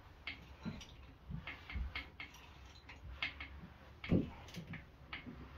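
Irregular light clicks and taps, about two a second, from hand tools working on the LS1 engine's top end, with a dull knock about four seconds in.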